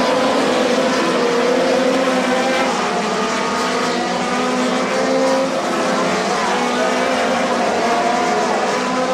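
Several winged midget race car engines running hard on track, their pitches shifting slightly as the cars circulate.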